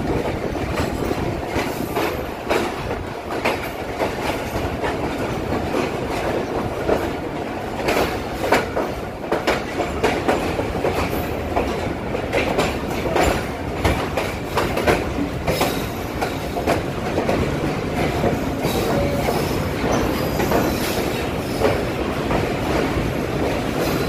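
Passenger train rolling through the station, its wheels clattering irregularly over the rail joints under a steady running rumble, heard from on board.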